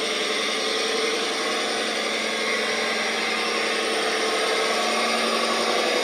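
Radio-controlled Komatsu HD405 scale dump truck driving loaded with sand, its drive giving a steady motor sound at an even level.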